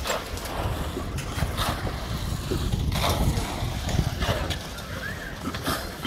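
Wind buffeting the microphone, with a gritty scrape about every second and a half as shovels dig into gravel.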